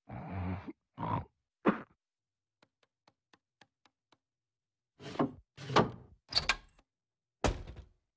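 Cartoon Foley effects: a few soft thuds, then faint quick ticks at about four a second, then a run of knocks and clicks ending in a sharp click as a wall light switch is flipped.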